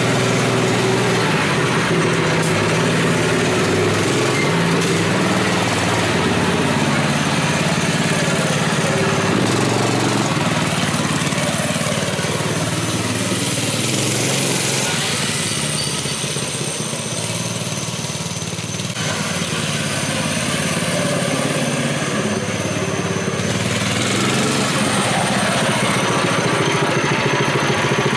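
Mini bike's small single-cylinder engine running, its pitch shifting as it is ridden; it grows quieter around the middle and then comes back up.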